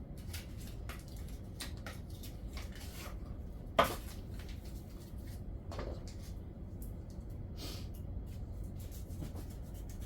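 Kitchenware being handled: light clicks and knocks, with one sharp knock about four seconds in and a softer one about two seconds later, over a low steady hum.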